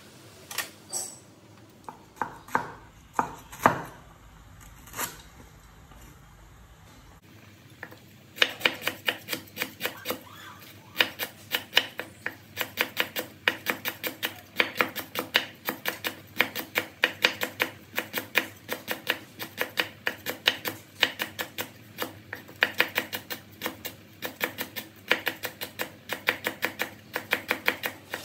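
A few separate knocks, then a cleaver slicing fresh lemongrass stalks on a wooden cutting board: quick, steady chopping strokes, about four a second, from about eight seconds in.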